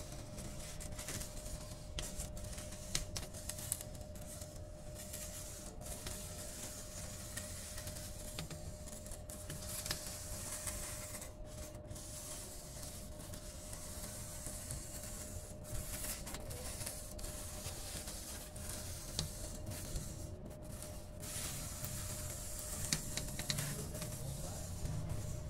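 Hot-wire foam cutter slicing through an expanded polystyrene (EPS) foam board as the board is fed along the wire: a steady hiss with small scattered crackles, over a constant thin hum.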